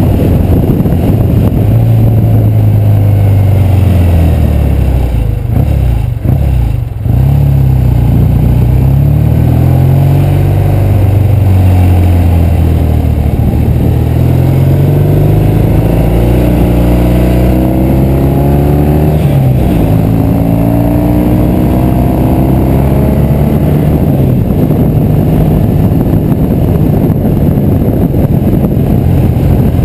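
1968 Triumph Bonneville's 650 cc parallel-twin engine under way, its pitch rising and falling again and again as the bike accelerates and slows, with a short dip in level about seven seconds in.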